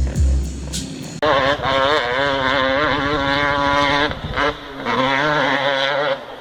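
KTM 250SX two-stroke motocross engine revving hard under throttle, its pitch rising and falling as the rider works the throttle. It cuts briefly a little past the middle, picks up again, and drops off near the end. A low rumble, with a few sharp clicks, comes before the engine in the first second.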